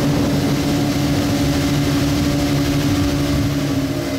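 Twin 40 hp outboard motors running steadily at cruising speed, with water rushing and spraying off the hull and outrigger floats.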